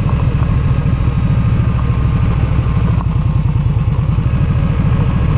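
Motorcycle engine running steadily while riding along a gravel road, its low exhaust pulses even and unbroken.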